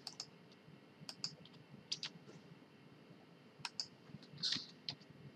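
Faint, scattered clicks of a computer mouse and keyboard, about ten in all, mostly in quick pairs with short pauses between.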